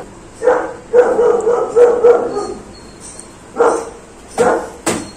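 A dog barking repeatedly in short, pitched bursts.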